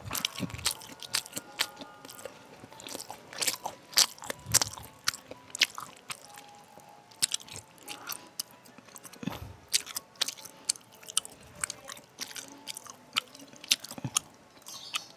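A person chewing food close to a handheld microphone, with many sharp, irregular crunches and clicks.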